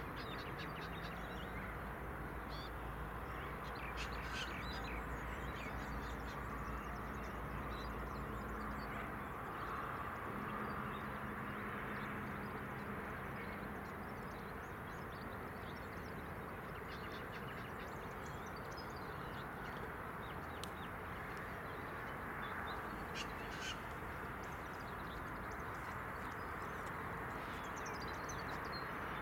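V/Line A class diesel locomotive idling at a distance, a low steady hum whose deepest part drops away about nine seconds in, with birds calling over it.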